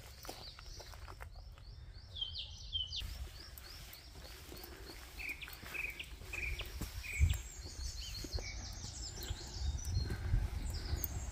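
Small birds chirping and singing in repeated short notes, with footsteps on a brick path and a few low thumps, the loudest about seven seconds in.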